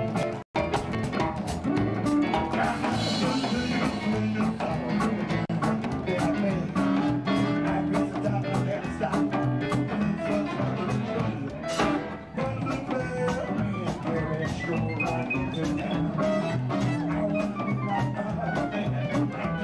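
A live band playing an up-tempo number with electric guitar and drum kit, cymbals and drums keeping a steady beat. The sound cuts out for a split second just after the start.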